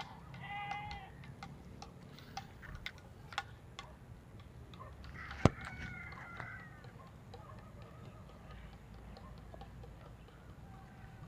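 Faint rooster crowing: a short call near the start and a longer crow about halfway, with a weaker call near the end. Light clicks are scattered throughout, and one sharp click comes about halfway.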